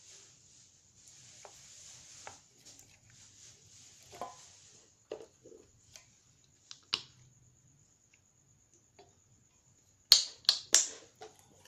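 Popsicle stick stirring glue and slime activator in a bowl: a soft scraping for the first few seconds, then scattered sticky clicks, and three sharp loud clicks close together near the end.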